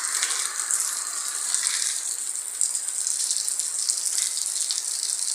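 Steady rain falling, a constant hiss of many drops.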